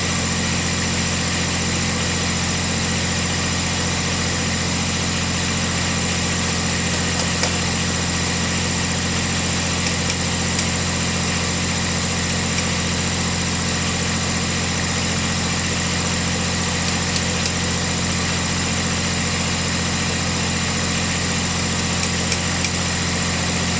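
Cub Cadet 1772 garden tractor engine running steadily at idle, with a few faint light clicks, while its hydrostatic transmission is being set to neutral.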